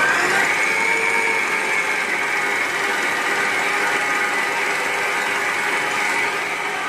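Stand mixer running with its dough hook kneading soft bread dough in a stainless steel bowl. It gives a steady motor whine with a gear hum, which rises in pitch at the very start as the motor speeds up and then holds steady.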